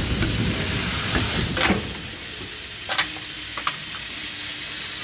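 Steady high hiss from an Emmegi Comet CNC machining centre, with a few sharp clicks and knocks from about a second and a half in as an aluminium profile is set into its clamps.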